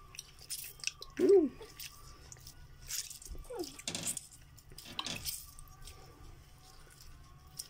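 Hot whey dripping and splashing in a pot as hands stretch a mozzarella curd and dip it back in, with scattered short wet splashes. A brief hummed sound about a second in.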